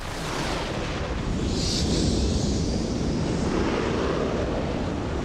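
F-16 fighter jet's engine noise: a loud, steady rushing that starts suddenly.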